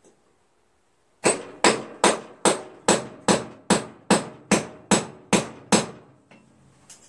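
A dozen hammer blows on metal, evenly paced at about two and a half a second, each with a short ring, struck to free a riding-mower rear wheel stuck on its axle.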